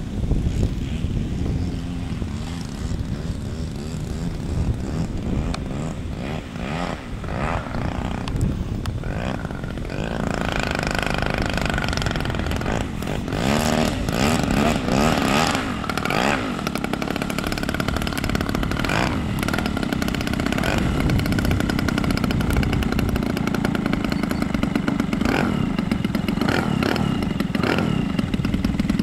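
Desert Aircraft DA-50R single-cylinder two-stroke gasoline engine of a large model airplane running at low throttle while the plane taxis, with a few short throttle blips about halfway through.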